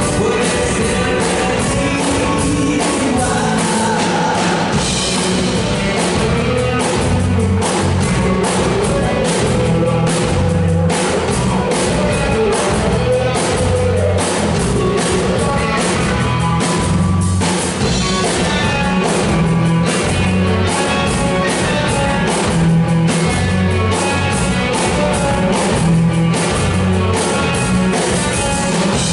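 Live rock band playing amplified: a man singing over electric guitar and drum kit, with a steady beat and pulsing bass notes.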